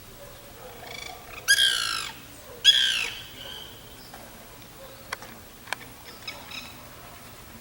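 White woodpecker (Melanerpes candidus) giving two loud calls about a second apart, followed by a few faint clicks and soft calls.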